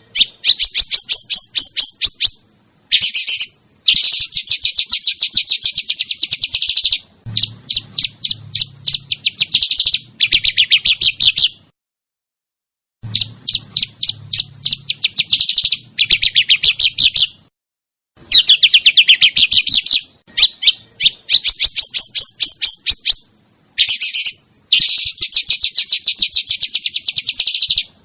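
Songbird singing fast rolling trills: long strings of rapid, high repeated notes in phrases of one to three seconds, broken by short pauses.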